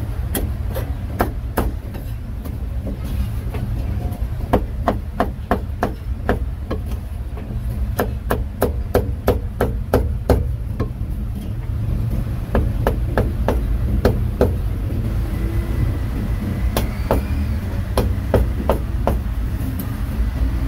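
Cleaver chopping cooked meat on a cutting board: runs of sharp, quick chops, about three a second at the fastest, broken by short pauses, over a steady low rumble.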